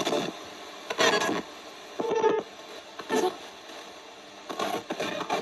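Ghost box (spirit box) radio sweeping through stations: steady static hiss broken about once a second by short snatches of broadcast sound.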